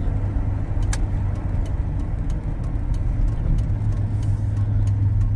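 C1500 pickup's original engine running and road noise heard from inside the cab while the truck is driven slowly: a steady low drone. A light, regular ticking sounds about every half second.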